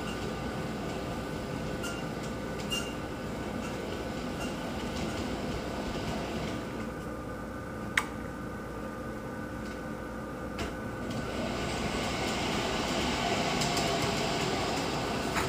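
Accucraft large-scale model of a Pennsylvania K4 4-6-2 locomotive running along its track, its wheels and drive making a steady rolling rumble with a faint whine. The sound dulls as the engine runs off into the distance and grows louder again as it comes back, with one sharp click about halfway.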